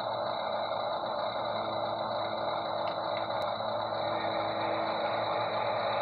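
Electric motor and gearbox of a toy RC wheel loader whirring steadily as it drives, with a steady high whine over it.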